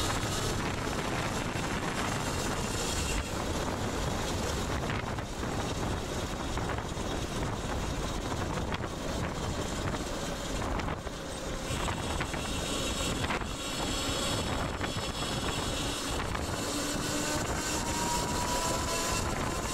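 Wind rushing over the microphone with road noise from a moving electric bike, swelling and dipping, and a faint rising whine near the end.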